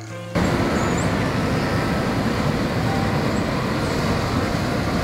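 Recorded sea surf: a steady, even wash of waves that cuts in abruptly about half a second in, with a couple of faint high dolphin whistles over it.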